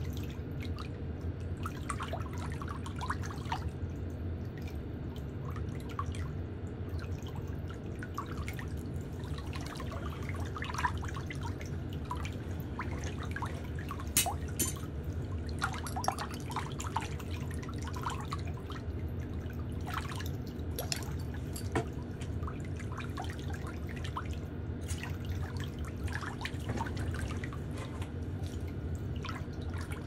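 A steady low hum with faint, irregular small clicks and ticks throughout, a few sharper ones near the middle.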